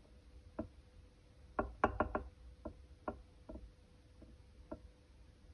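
Small, sharp clicks and ticks, a dozen or so, with a quick run of four about two seconds in: a vernier caliper pressing a small RC car coil spring down onto a plastic kitchen scale, the metal spring and caliper shifting under the hand.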